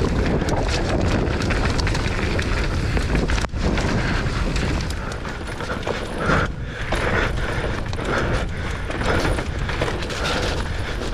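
Mountain bike riding down a dirt park trail: a steady rush of wind and tyre noise, with frequent knocks and rattles from the bike over rough ground.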